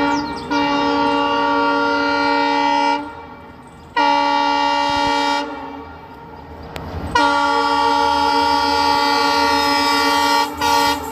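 Indian Railways train horn sounding in four steady blasts: one of about three seconds, a shorter one of about a second and a half, a long one of about three seconds, then a brief toot near the end.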